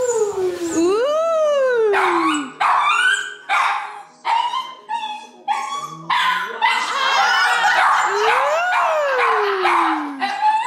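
Small dogs barking and yapping in quick repeated calls, with two long howls that rise and then fall in pitch: one at the start and one about eight seconds in.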